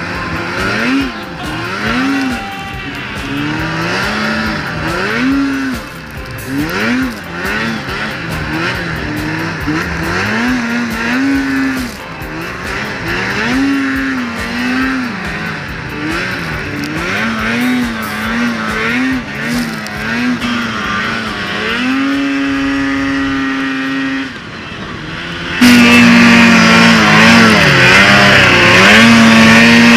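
Arctic Cat XF 8000 snowmobile's 800 C-TEC2 two-stroke twin, heard from the rider's seat, revving up and down over and over as the sled is ridden across snow. About 22 s in it holds a steady high note for a couple of seconds; near the end it turns suddenly much louder and stays at high revs as the sled ploughs into deep snow, throwing spray.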